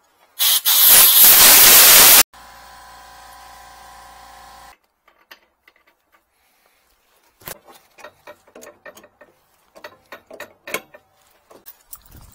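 A loud hiss lasts about two seconds and cuts off abruptly, followed by a quieter steady hum with a few held tones that also stops suddenly. In the second half, a wrench clicks and knocks against metal pipe fittings in a string of short, sharp sounds.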